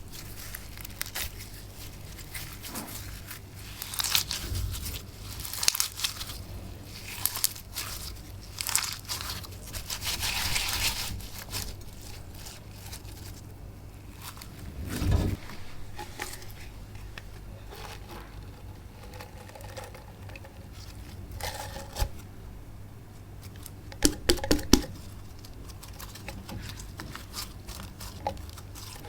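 Hands working crafting material, probably slime, with irregular crinkling and tearing sounds and scattered sharp clicks. There is a low thump about halfway through and a quick cluster of louder pops near the end.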